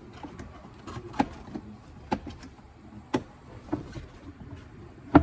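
Plastic trim of a pickup's glove box and cabin-filter access cover being clipped back into the dashboard: about five sharp clicks and knocks a second or so apart, the loudest near the end.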